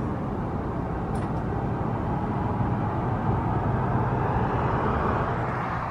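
Street traffic noise, a steady rush of passing vehicles that swells a little over the last couple of seconds.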